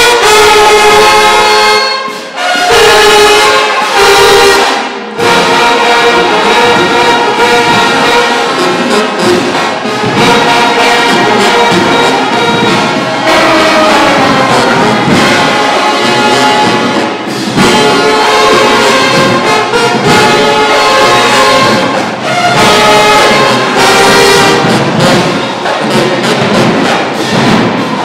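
Marching band horn section playing loud, full chords together: trumpets, trombones, mellophones, saxophones and sousaphones. The sound breaks off briefly twice in the first few seconds.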